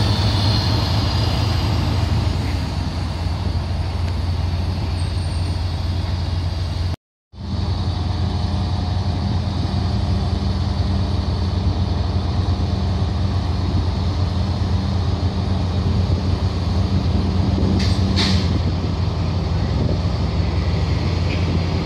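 Colas Rail Class 70 diesel locomotive's GE V16 engine running with a steady low throb, first as it rolls past close by, then standing at the platform. The sound cuts out for a moment about seven seconds in, and a short hiss of air comes near the end.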